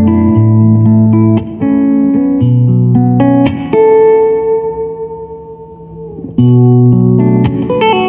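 Ibanez Prestige S5470F electric guitar played single-note: a run of picked notes, then about four seconds in one note held for over two seconds that slowly fades and is cut off, followed by more quick picked notes.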